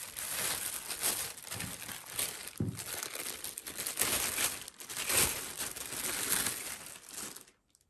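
Thin clear plastic bag crinkling and rustling as hands pull it open and off the floodlight camera it wraps; the crinkling stops near the end.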